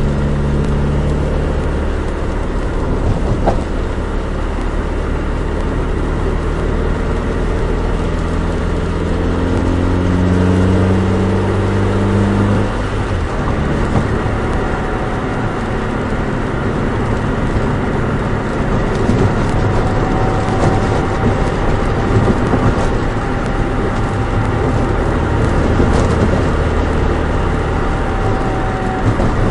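Nissan Micra 1.3 engine and road noise while driving. The engine note climbs under acceleration, drops suddenly as a gear is changed, then settles into steady running.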